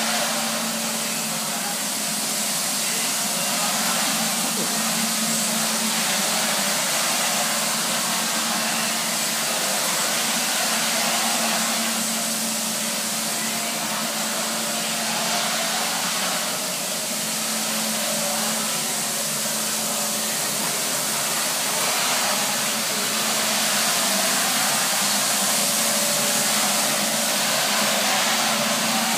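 Nilfisk BA531D scrubber dryer running: a steady motor hum with an even hiss, holding level throughout.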